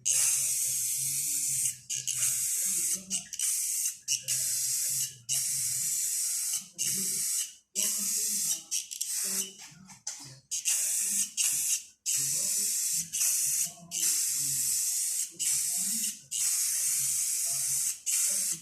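Anti-rust spray hissing from a spray can onto the bus body's rusty sheet metal. It comes in repeated bursts of a second or two, with short breaks between them.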